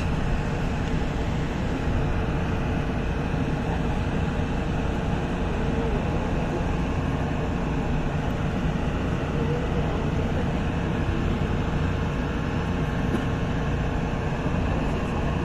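Mexico City Tren Ligero light rail train running at a steady speed, a continuous low rumble from the rail car.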